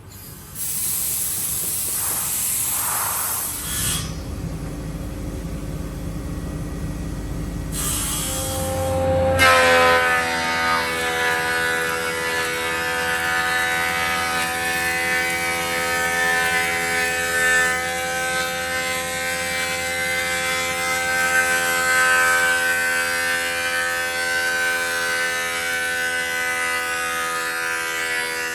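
Woodworking machinery running on a hardwood slab: a brief high hiss, then a low rumble, then a steady whining hum from about nine seconds in that cuts off suddenly near the end.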